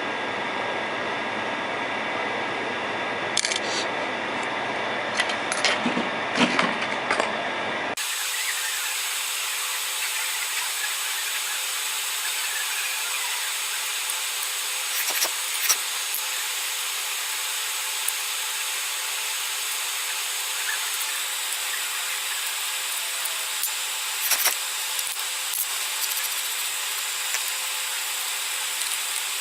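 Steady rushing hiss of a hot air rework station blowing over a phone board, with a few light clicks and taps of tools about four to seven seconds in, twice more around fifteen seconds and once near twenty-four seconds. About eight seconds in the hiss abruptly loses its low rumble and turns thinner.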